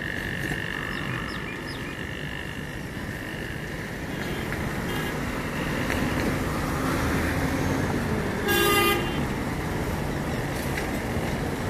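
Road traffic passing with a steady rush of engines and tyres, and one short vehicle-horn toot about eight and a half seconds in, the loudest sound. A high steady whine fades out in the first few seconds.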